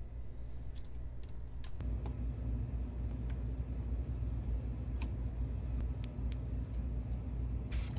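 Desoldering a capacitor from a circuit board with a soldering iron and copper desoldering braid: scattered light clicks and taps of the tools on the board over a steady low hum.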